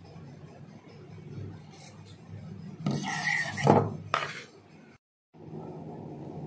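Scissors cutting cotton cloth: fabric rustling, then a loud rasp of the blades and cloth about three seconds in, over a low steady hum.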